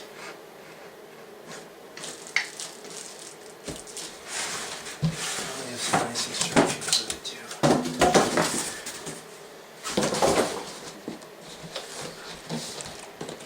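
Packaging and parts being handled while a keyboard is unpacked from its shipping box: scattered knocks, clatter and rustling, busiest about midway through.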